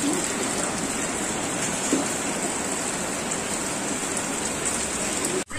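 Steady rain falling, cutting off suddenly near the end.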